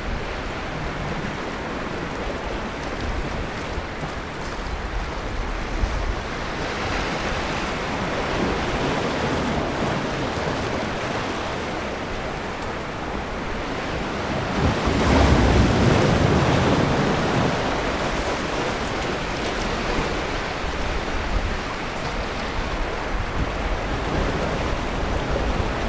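Sea waves breaking and washing on a beach, swelling and falling, with the largest wave about fifteen seconds in. Wind buffets the microphone with a low rumble.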